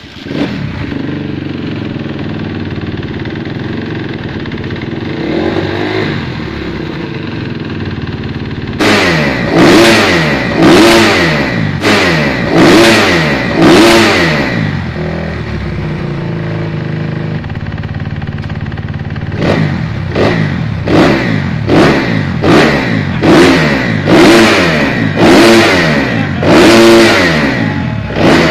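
An engine running steadily, then revved in a series of short throttle blips, about one a second, each falling back in pitch; after a steadier spell it is blipped again in a second run.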